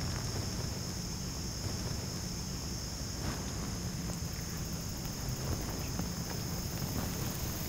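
Steady chorus of insects singing in the woods: an even, high-pitched trill with no breaks, with a few faint scattered ticks or rustles.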